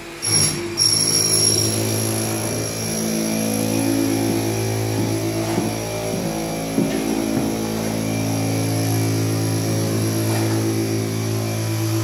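A construction-site machine running steadily: a constant motor hum with a thin high whine over it. A few faint knocks come through about halfway in.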